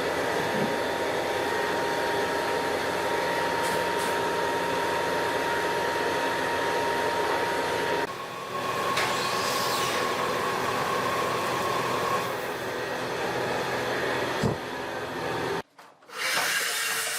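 Electric woodworking power tool running steadily with a faint steady whine. The sound changes abruptly about halfway through and drops out briefly near the end.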